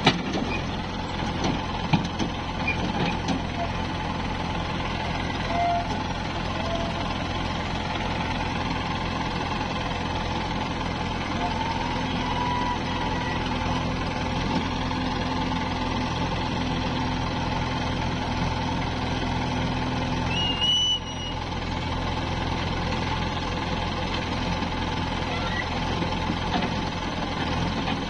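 Diesel engine of a JCB 3DX backhoe loader running steadily as the backhoe digs and loads mud, with a waiting tractor's engine alongside. A few sharp knocks in the first couple of seconds.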